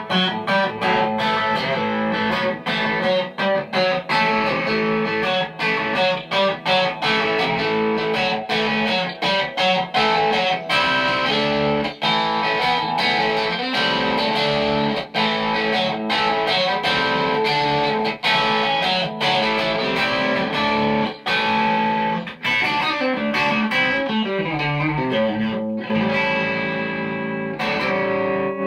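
Electric guitar, a Fender American Professional Stratocaster, played through a Vox MV50 AC mini amp head and Vox BC112 1x12 cabinet: a continuous stretch of picked chords and single-note lines. A descending run comes near the end, followed by a chord left ringing.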